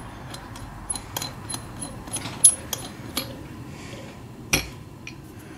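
Irregular light metallic clicks and clinks of small parts on an SU carburettor's float chamber lid being handled and screwed together by hand, the sharpest about halfway through.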